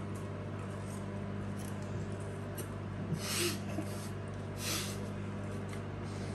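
A steady low electrical hum, with two short hissing noises about three and four and a half seconds in.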